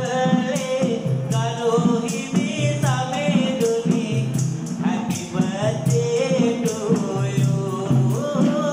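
Sinhala viridu: a man's voice chanting sung verse over a steady beat of a small hand-held frame drum (rabana), with jingling hand percussion striking along with it.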